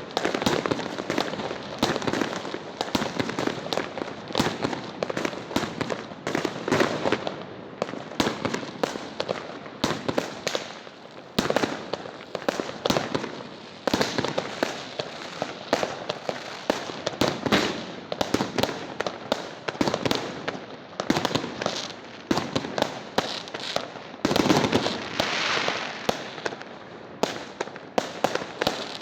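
Fireworks going off: a dense, continuous run of sharp bangs and crackles with no real pause, and a louder cluster of bangs near the end.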